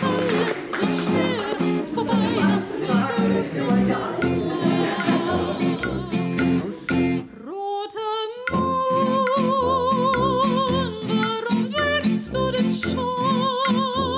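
Acoustic guitar music: low plucked notes in a steady rhythm under a melody. About seven seconds in the melody slides upward, then holds long, wavering notes over the plucked rhythm.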